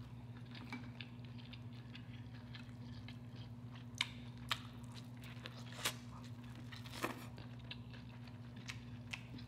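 Close-miked chewing and mouth sounds of eating a seafood boil, king crab meat and then a bite of corn on the cob, with a few sharp wet clicks through the middle. A steady low hum runs underneath.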